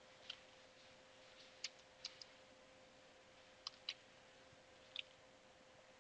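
Faint computer-keyboard keystrokes, about seven scattered clicks a second or so apart, over a faint steady hum.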